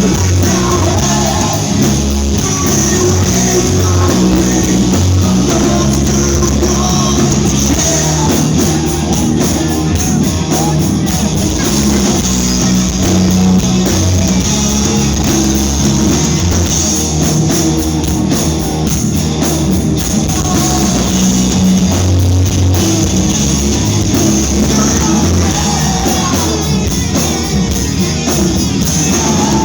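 Live rock band playing loud: electric guitars, drum kit and singing.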